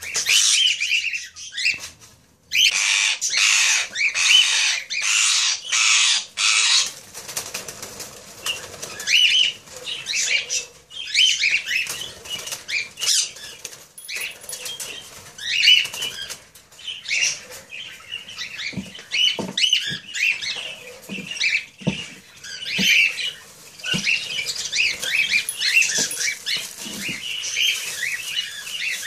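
Ringneck parakeets squawking and calling, with wing flapping; a run of loud, harsh bursts comes a few seconds in, then many short calls follow one another.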